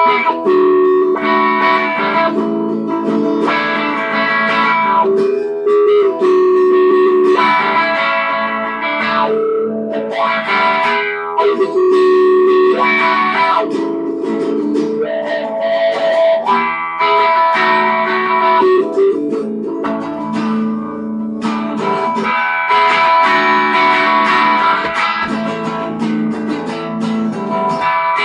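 Electric guitar, an Epiphone Wildkat, played through an amp: chords and picked notes in repeating phrases with short breaks between them.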